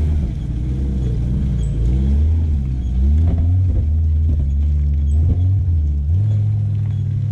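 Suzuki Caribian 4WD's engine revving as it drives, its note rising and falling repeatedly, then stepping up to a higher steady pitch about six seconds in.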